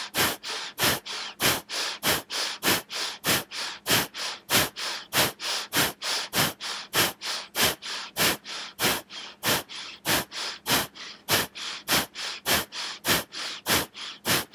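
Bhastrika (bellows breath): a rapid, even run of forceful, audible breaths, inhale and exhale both pushed, about three strokes a second with louder and softer strokes alternating.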